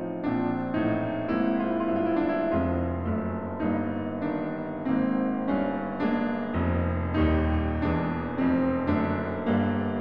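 Background piano music: a steady run of notes over low bass notes that change every few seconds.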